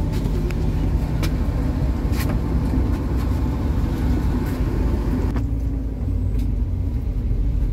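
MAZ-216 articulated city bus running along the road, heard from inside the cabin: a steady low engine and road rumble with a few short rattles. The higher hiss falls away sharply about five seconds in.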